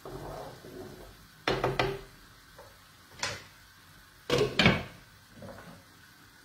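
Cookware and utensils clattering: a pot lid and a metal skimmer knocking against pots and the counter in a few sharp clanks, loudest as two quick pairs about a second and a half and four and a half seconds in.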